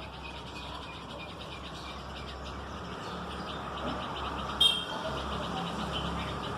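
Red-vented bulbul giving a single short, sharp call about four and a half seconds in, over a steady low background hum.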